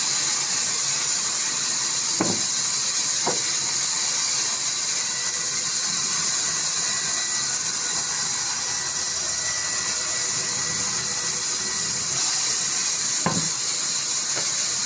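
Band saw in a sawmill running and ripping mahogany, a steady high hiss. There are a few short knocks from the timber being handled: two about two and three seconds in, and one near the end.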